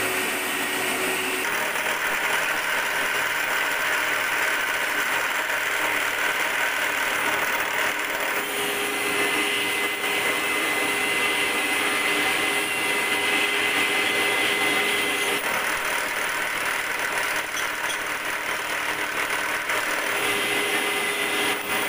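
Milling machine running, its end mill cutting the flats of a hexagon nut: a steady mechanical drone whose tone shifts abruptly a few times, with a high whine held for several seconds in the middle.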